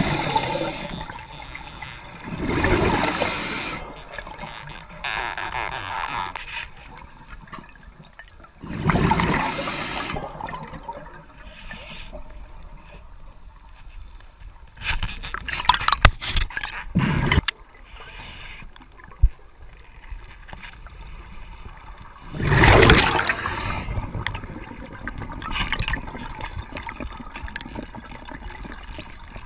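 Underwater: a diver's exhaled breath bubbling out in loud gurgling bursts every several seconds, over a low watery hiss. A few sharp clicks and knocks come in the middle, while the lobster snare pole works along the rock.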